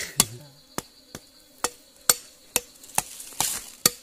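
Machete chopping meat on a banana-leaf mat, sharp regular strokes about twice a second. A thin, steady insect whine runs underneath.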